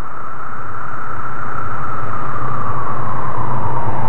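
Tornado wind sound effect: a loud rush of wind with a low rumble underneath, growing steadily louder, its whistling tone rising a little and then falling.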